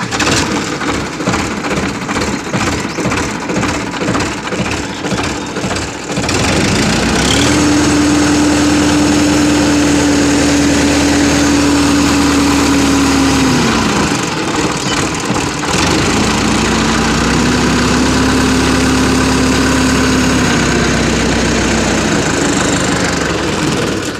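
Standard 460 DI tractor's diesel engine, just started, idling unevenly for about six seconds. It is then revved up and held for about seven seconds, drops back, and is revved up again, a little lower, for about five seconds before it settles back toward idle.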